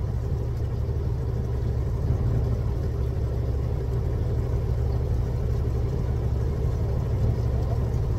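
Fishing boat's engine running steadily at idle: an even, unbroken low hum.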